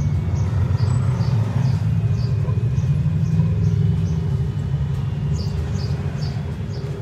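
Footsteps crunching on gravel at a walking pace, about two to three steps a second, over a steady low rumble.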